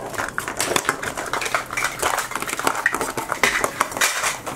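Printed plastic wrapper crinkling as it is peeled and torn off a 5 Surprise Mini Brands capsule ball, with small clicks and clatter of hard plastic.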